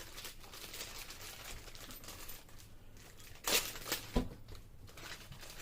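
A small packaging bag being handled and crinkled while it is opened, with a louder burst of crinkling about three and a half seconds in and a sharp click just after.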